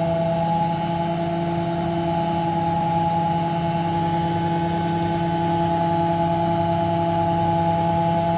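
Beko washing machine in its final spin, the drum spinning at high speed: a steady motor whine with several held tones over a low hum.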